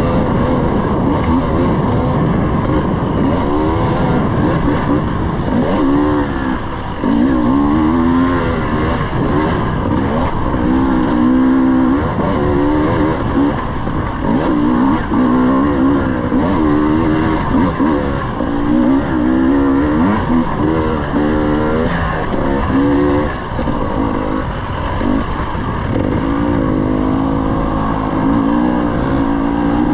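300cc two-stroke dirt bike engine, heard close from the bike being ridden, its pitch rising and falling over and over as the throttle is opened and closed along the trail.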